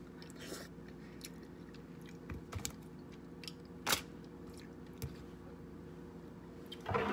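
Eating king crab legs: scattered sharp cracks and crunches of shell along with chewing, the loudest crack about four seconds in, over a steady low hum.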